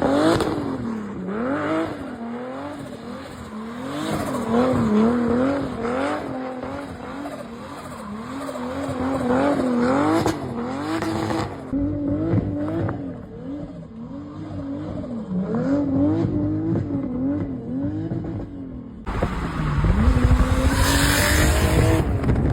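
Toyota 2JZ inline-six swapped into a Nissan S14 240SX, revving up and down about once a second as the car drifts, with tyres squealing. Near the end the revs drop, then climb steadily and louder.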